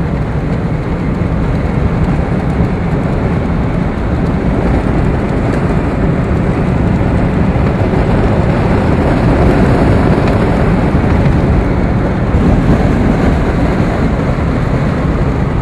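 1939 Cadillac Series 90 V16 convertible sedan under way: its flathead V16 running steadily under a constant rush of road and wind noise.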